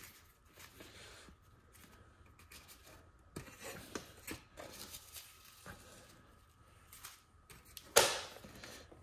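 Handling of a torque wrench's plastic storage case and foam insert: faint rustling and small scattered clicks, with one louder sharp knock about eight seconds in.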